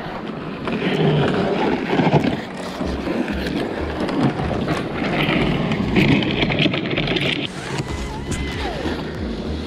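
A sled loaded with ice-fishing gear scraping as it is dragged over snow and road, with footsteps crunching through snow and wind on the microphone.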